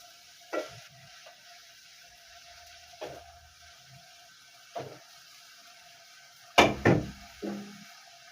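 Kitchen cookware knocks and clatters, typical of chicken pieces and utensils being handled at a pot. There are three separate knocks a couple of seconds apart, then a louder quick run of three near the end, over a faint steady hum.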